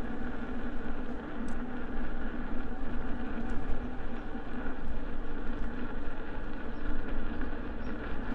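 Steady wind noise buffeting the microphone, with road rumble and a faint steady hum, from riding an electric unicycle at speed.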